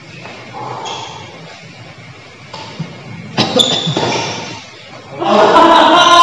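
People shouting loudly during a badminton game, with a sharp knock and a sudden outburst about three seconds in and a longer, louder burst of shouting near the end.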